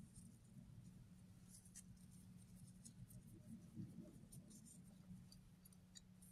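Near silence: faint scratchy rustling and light ticks from hands working a makeup sponge on the face and handling the cloth head wrap, over a low steady hum.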